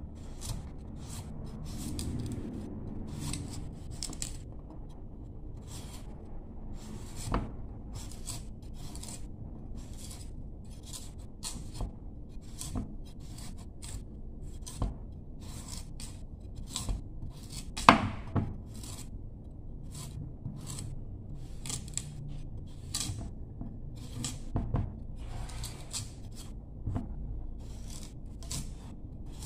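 Kitchen knife shaving the skin off a root vegetable: short, sharp scraping strokes every second or so, with one louder knock about eighteen seconds in.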